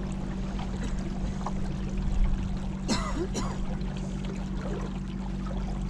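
Water trickling and splashing around a kayak on the river, over a steady low hum. A brief rising pitched sound comes about three seconds in.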